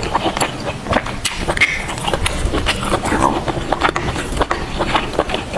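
Close-miked mukbang eating sounds: a person chewing and biting food, with frequent short wet clicks and smacks.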